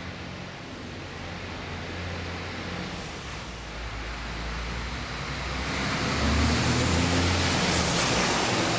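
A motor vehicle's engine hum with road noise, growing steadily louder as it approaches, loudest over the last few seconds.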